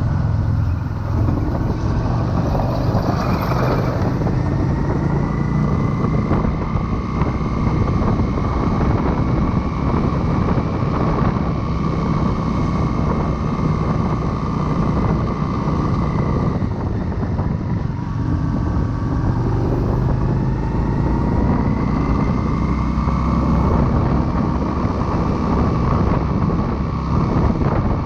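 Motorcycle engine running under way, heard from the rider's chest-mounted camera with wind rushing over the microphone. The engine note slowly climbs and falls, dips about two-thirds through, then climbs again.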